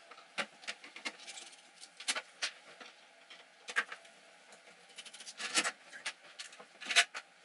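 Screwdriver and hands working on the open back of a Univox U-1226 tube amp head: scattered sharp metallic clicks and clinks with light rattling, the loudest about seven seconds in.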